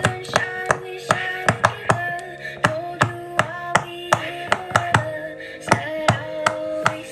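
Silicone bubbles of a pop-it fidget toy being pressed in by fingers, giving sharp pops at an uneven pace of about three a second. A slow song with singing plays from a tablet's speaker underneath.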